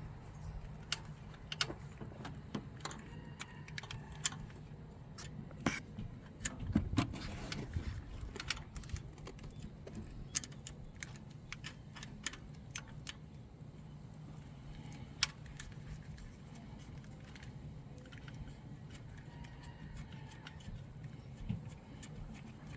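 Irregular metallic clicks and clinks of hand tools and bolts being handled during engine-bay work, over a faint steady low hum.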